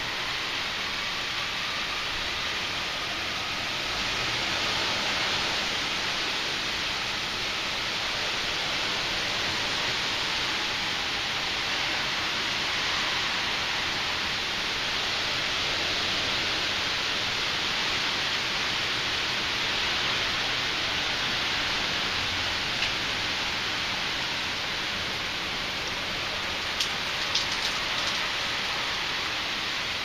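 Heavy rain falling steadily, a dense even hiss, with a few sharp taps near the end.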